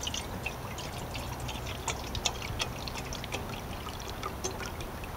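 Water pouring in a steady stream from a glass bottle into a metal cooking pot, splashing and trickling as it fills.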